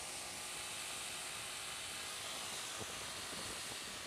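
Motorcycle riding up a steady climb, its engine running under a constant hiss of wind and road noise on the rider's microphone.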